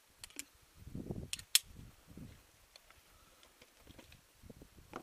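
Scattered sharp clicks and knocks of a climber's gear and boots against rock, the loudest about one and a half seconds in, over low rubbing and shuffling of clothing and harness close to a body-worn microphone.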